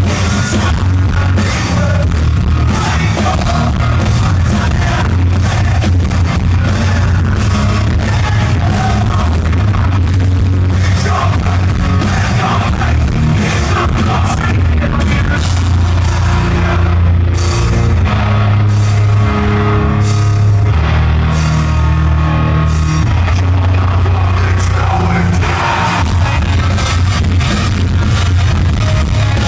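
Live rock band playing loudly through a concert PA: electric guitar, bass guitar and a drum kit, with a singer, heard from within the audience.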